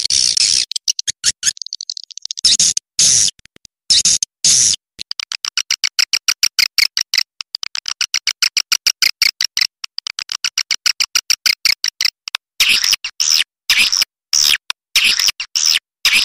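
Swiftlets twittering in rapid trains of short, high clicking chirps, about six a second through the middle, with longer chirps in quick bursts near the end: the kind of swiftlet call recording played to draw swiftlets to roost in a nesting house.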